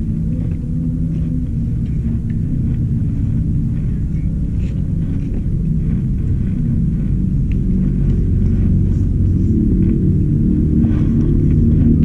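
Muffled, bass-heavy music: only its low notes come through, as steady tones that shift every few seconds, with a few faint clicks over it.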